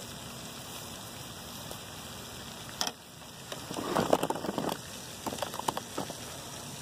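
A steady hiss like falling water, with a sharp click nearly three seconds in and then a couple of seconds of close crackling and rustling handling noise on the phone's microphone.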